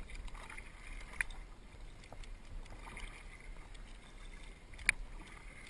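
Double-bladed kayak paddles dipping and swishing through the water as a tandem kayak is paddled, with two sharp clicks, about a second in and near the end.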